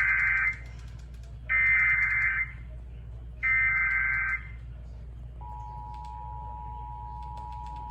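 Emergency Alert System SAME header: three bursts of warbling two-tone digital data, each about a second long with about a second between them. About five and a half seconds in, the steady two-tone EAS attention signal (853 and 960 Hz) begins, marking the start of a new alert. A low hum runs underneath.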